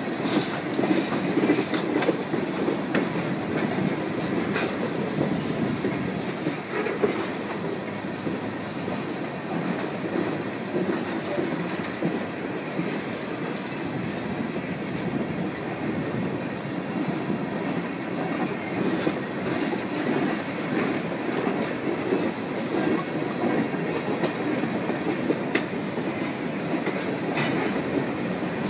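Freight train cars rolling past: a steady rumble of steel wheels on rail, with occasional clicks over the rail joints.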